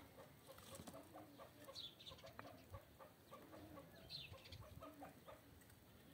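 Faint chicken clucking, with a short high falling chirp about every two and a half seconds.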